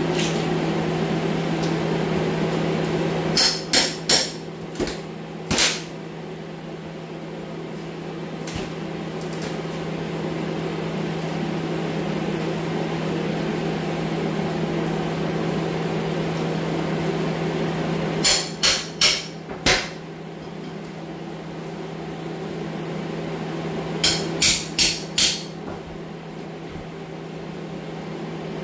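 Hammer blows on the wood strapping along the bottom of a cinderblock basement wall, knocking it loose. They come in three quick bursts of four or five strikes. A steady air-scrubber hum runs underneath.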